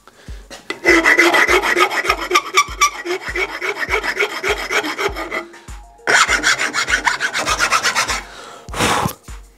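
Hand saw cutting, quick rasping back-and-forth strokes in two runs with a short break about six seconds in.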